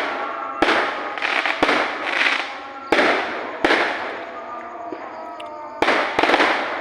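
Fireworks going off: about six sharp bangs, each trailing off over most of a second, with a lull in the middle.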